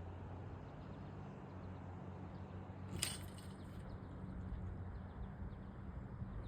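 Steady low outdoor background rumble with one sharp click about three seconds in.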